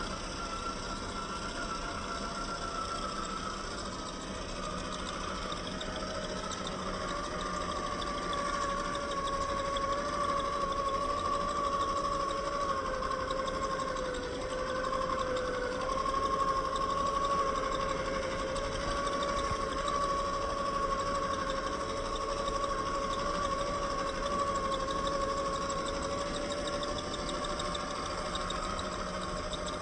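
Traxxas TRX-4 RC crawler's electric motor and geared drivetrain whining steadily as it crawls. The pitch drifts down a little in the first few seconds and dips briefly about halfway through.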